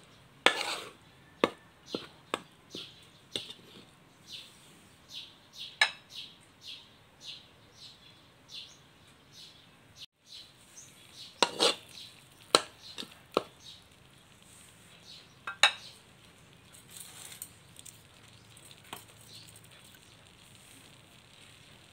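Metal spatula scraping and clinking against a steel wok while stirring thick curry paste being fried, in irregular strokes that thin out and grow fainter near the end.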